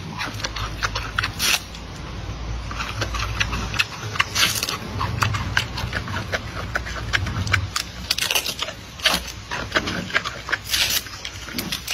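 Giant panda eating a bamboo shoot: a quick, irregular run of crisp cracks and crunches as it bites and chews the shoot. A low steady hum lies underneath and stops about two-thirds of the way through.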